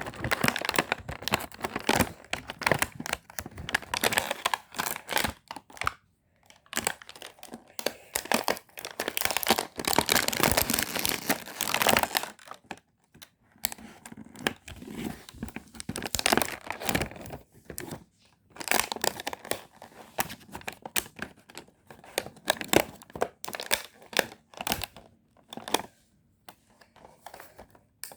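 Packaging being crinkled, handled and torn open by hand during an unboxing, in bursts with short pauses between them.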